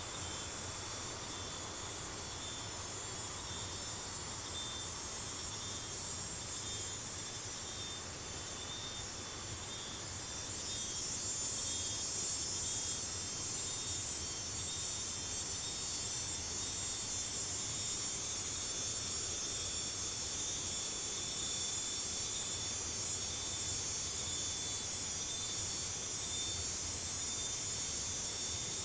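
Steady high-pitched insect chorus, growing a little louder about ten seconds in.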